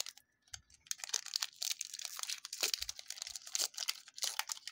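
Foil wrapper of a Pokémon Chilling Reign booster pack crinkling and crackling in the hands as it is worked open, a quick irregular run of crackles.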